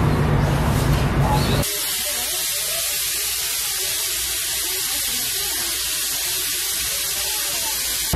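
Busy background noise that cuts off abruptly about two seconds in to a steady, even hiss.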